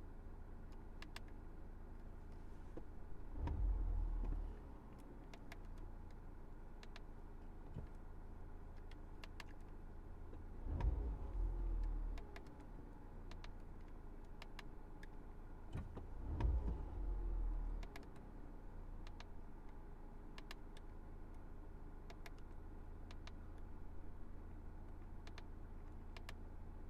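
2019 Honda Civic Type R's 2.0-litre turbocharged four-cylinder idling through its exhaust, revved three times, each blip rising and falling over a second or two, with a steady idle between.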